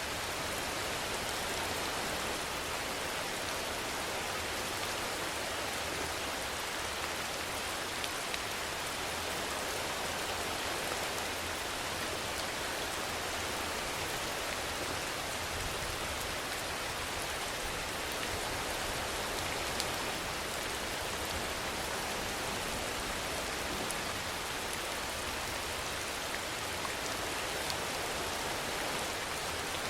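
Steady rainfall: an even hiss of rain with a few sharper drop ticks scattered through it.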